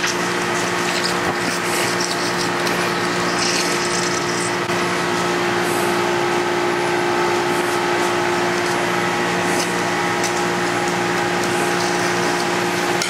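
A steady machine hum with several held tones, with a few faint scrapes and clicks of a knife and fork working on a metal roasting tray.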